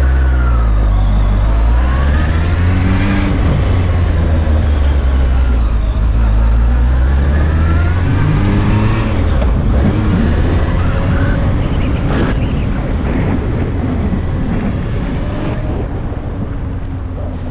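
Suzuki Bandit 1200's inline-four engine pulling away and accelerating. Its pitch rises and falls twice over the first nine seconds, then gives way to a steadier rush of wind and road noise.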